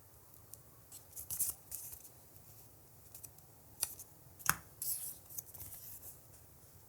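Hands handling an earbuds box and its contents: scattered clicks, taps and short scraping rustles. The sharpest click comes about four and a half seconds in.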